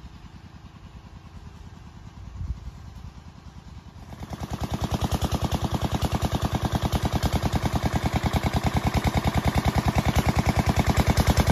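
A small engine running with a rapid, even pulse, faint at first, then much louder from about four seconds in and holding steady.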